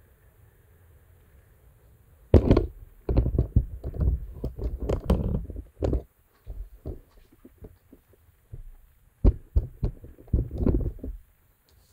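Thumps, knocks and rubbing from a phone being handled and moved, with items set down on a tabletop. They come in a cluster starting about two seconds in and a second shorter cluster near the end.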